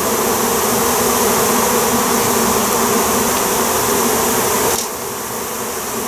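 A swarm of honey bees buzzing as a dense, steady hum while they crowd into a hive box. The hum drops suddenly a little about five seconds in.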